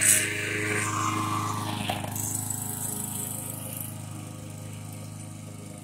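Walk-behind gas lawn mower engine running steadily under load while cutting grass, growing fainter as it is pushed away.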